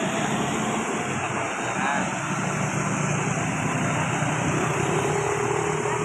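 Bus diesel engine running steadily amid road traffic noise. A faint steady tone joins about two-thirds of the way in.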